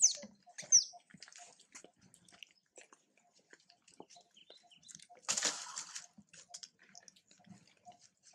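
Two short, high-pitched animal squeaks falling in pitch, one at the very start and one just under a second later. A brief rustling scrape follows about five seconds in.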